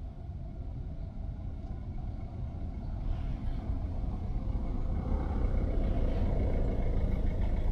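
A motor vehicle's engine drawing near, its low rumble growing steadily louder through the second half, with a steady engine hum coming in near the end.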